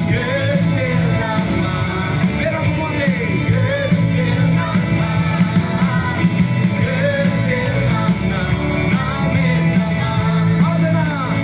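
Live band music amplified through a PA: several singers sing a song together over electric and acoustic guitars and keyboard.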